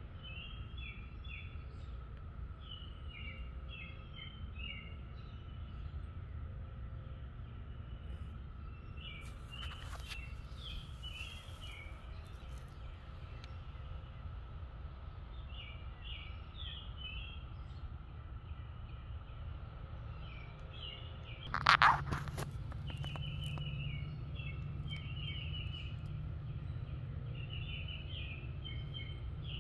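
A bird singing short chirping phrases again and again, over a steady hum and a low background rumble. One loud, brief sound stands out about 22 seconds in.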